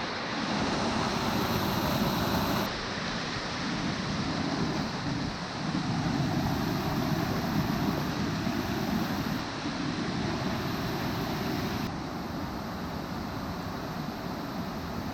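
Waterfall's rushing water: a steady roar of falling water, its tone changing abruptly about three seconds in and again later on.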